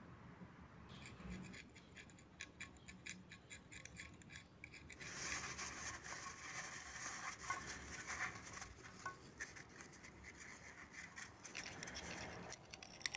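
A towel rubbing and scratching over the gasket face of a 2013 Honda CBR250R cylinder head, wiping off old gasket leftovers. It is faint: scattered scratchy clicks, turning to steadier rubbing about five seconds in.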